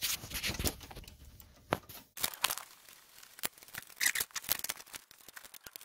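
Hand ratchet on a wobble extension clicking in short, irregular runs, with metal tools clinking and knocking, as a turbo pedestal bolt is worked loose. Rustling of hands among the wiring and heat-shield wrap runs underneath.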